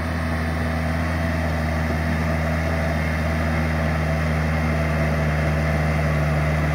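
Yanmar tractor's diesel engine running steadily under load as it pulls a rear tiller; the tractor is about a month old and the engine sounds healthy. It grows slightly louder as the tractor draws closer.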